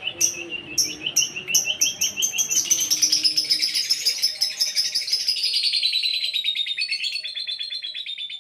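Lovebird singing: a run of short, sharp chirps, about three a second, then a long, rapid chattering trill lasting about six seconds. The bird is molting.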